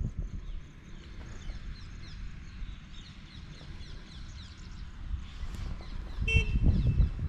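Birds chirping, a steady stream of short falling chirps, with one brief clear whistled note near the end. Under it runs a low rumble that grows louder in the last second.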